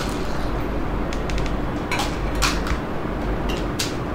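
Crisp pani puri shells being cracked open and handled over steel plates and bowls: a few separate sharp cracks and clinks over a steady low hum.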